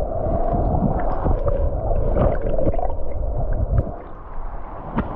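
Stream water gurgling and sloshing close to the microphone, with a heavy low rumble and scattered small splashes and clicks, easing off somewhat near the end.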